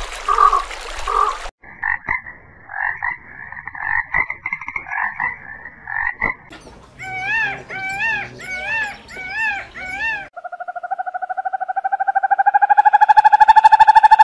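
Animal calls in three different kinds, one after another: a run of short repeated calls, then about five arched calls in a row, then a long buzzing trill that rises slowly in pitch and grows louder.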